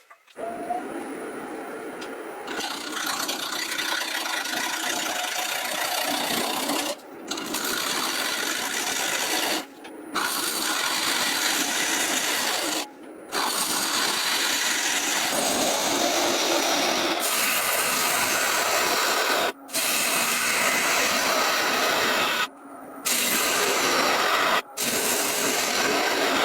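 Woodworking tools abrading a block of wood: a steady, loud rasping and grinding noise. It breaks off abruptly and resumes several times, as short clips of the work follow one another.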